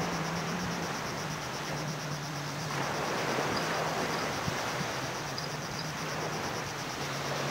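Small waves washing onto a sandy beach, a steady hiss that swells and eases every couple of seconds. Above it, insects keep up a high, evenly pulsing trill.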